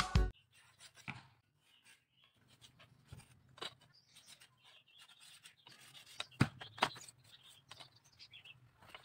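Faint, scattered scrapes and light knocks of a knife shaving the outer skin off a bamboo strip, with a short cluster of louder strokes about six to seven seconds in.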